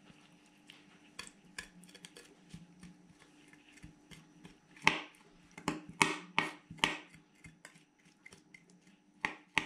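Kitchen knife scraping inside a mackerel's opened belly against a plastic cutting board, cleaning out the blood and black membrane. A run of sharp scrapes and clicks comes about five seconds in, with a couple more near the end.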